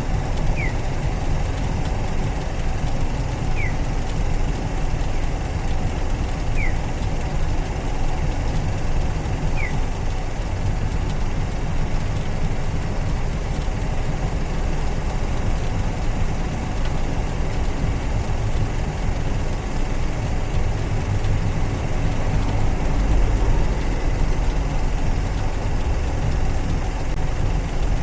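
Honda CBR600RR's inline four-cylinder engine running steadily at low revs, with no sharp revving. A faint short chirp repeats about every three seconds, four times, in the first third.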